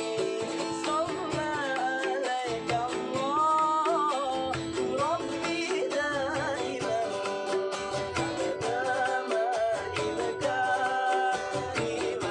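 Live music: a singer's wavering, gliding melody over plucked guitar accompaniment.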